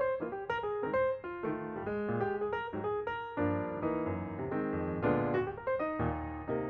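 Background music led by piano or electric piano, a run of quick notes over chords and a bass line.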